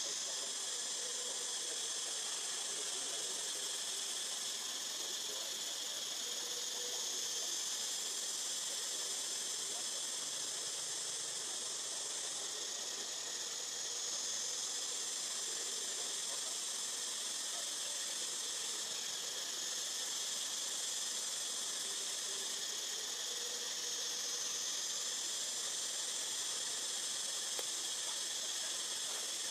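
Forest insect chorus: a steady, high droning that swells and eases in slow waves about every six seconds.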